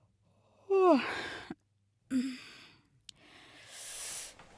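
A woman sobbing. A falling, moaning sob comes about a second in and a shorter one around two seconds, followed by a long breathy exhale.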